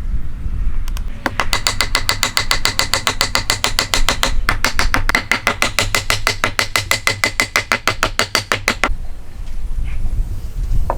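Rapid, even hammer strikes with a metallic ring, about seven a second, starting about a second in and stopping near the end, with a brief pause midway.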